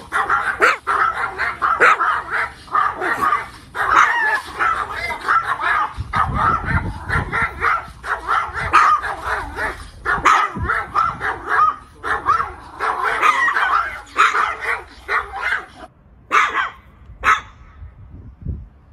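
Two small Chihuahua-type dogs barking and snarling at each other in rapid, nearly continuous growl-like barks. Near the end a couple of single sharp barks follow, then it goes quieter.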